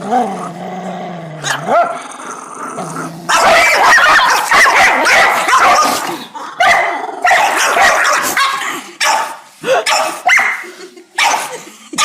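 A dog vocalising: a drawn-out pitched call that bends up and down for about three seconds, then loud, rough barks and growls, first in a dense stretch and then in a string of separate bursts.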